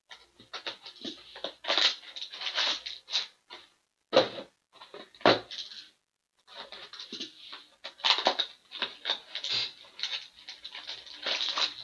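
Cardboard scraping and rustling as sealed hockey card boxes and the cardboard case sleeve are handled and slid across a tabletop. Two louder knocks come about four and five seconds in.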